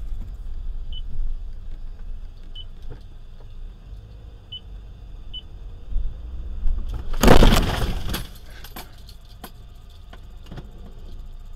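Car collision heard from inside a dashcam car: a low rumble of the car running, four faint short beeps in the first half, then about seven seconds in a loud crash lasting about a second, followed by scattered clicks and tinkles of debris.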